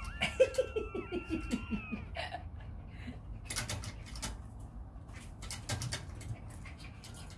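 Schipperke dogs jumping and scuffling at a wire garden gate: scattered sharp clicks and knocks of claws and paws on paving tiles and the fence. In the first two seconds a thin high whine fades out over a quick falling run of about eight short cries.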